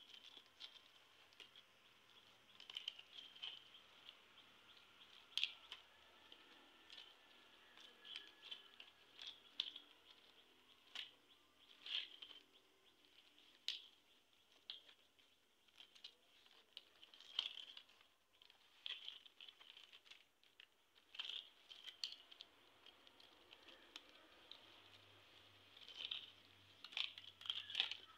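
Dried coconut frond leaflets crackling and rustling as they are folded and woven into a plaited mat by hand: faint, irregular crisp crackles every second or so.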